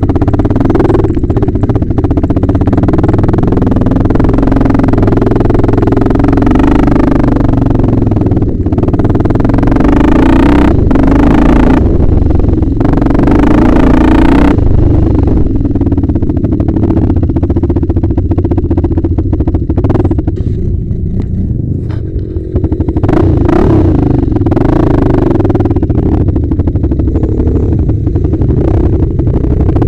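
Yamaha Raptor 660 ATV's single-cylinder four-stroke engine running under throttle, revving up and easing off several times, heard from a camera mounted on the quad, with rattling from the ride. The revs drop briefly about two-thirds of the way through.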